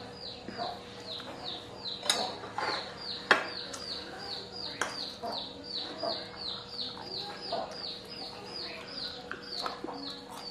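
Chicks peeping steadily, a high, falling chirp repeated about three times a second. A few sharp clicks or knocks cut in, the loudest about three seconds in.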